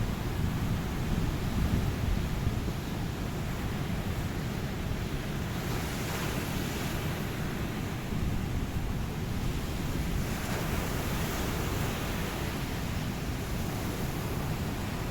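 Ocean surf: a steady rush of waves, with a heavy low rumble and swells of brighter wash about six and ten seconds in.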